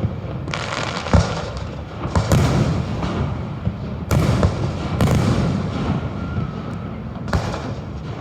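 Aerial fireworks shells bursting: a string of sharp booms every second or two, each trailing off in a long rumbling echo.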